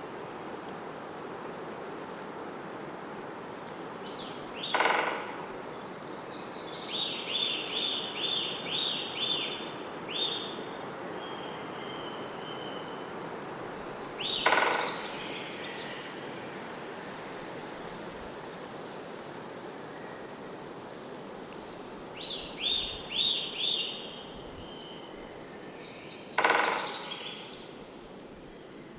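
Birds calling over a steady outdoor background hiss: a loud call that drops in pitch three times, about ten seconds apart, and two runs of quick, high, repeated chirps.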